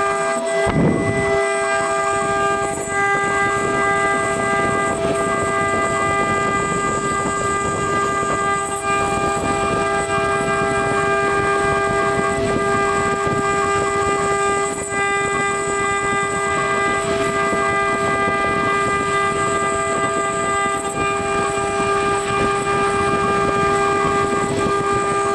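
Mini CNC engraving router's spindle running at one steady, high pitch while the cutter engraves brass.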